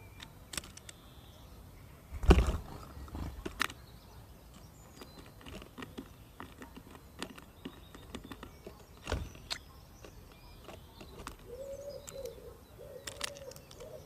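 Scattered sharp taps and knocks as small birds land on and peck at a wooden garden feeder, the loudest about two seconds in. From about eleven seconds a pigeon coos in low, repeated phrases.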